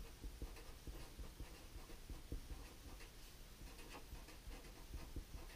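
Felt-tip marker writing on a sheet of paper: faint, quick scratchy strokes as a short line of handwriting goes down.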